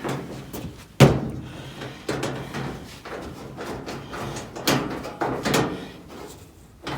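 Clunks and knocks of an electric clothes dryer's sheet-metal cabinet parts being handled and fitted during reassembly, with one sharp bang about a second in and several more knocks later on.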